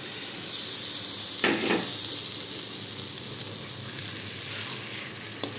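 Onion and spice masala sizzling steadily in a wok as cubes of paneer are tipped in, with a brief knock about a second and a half in and a click near the end.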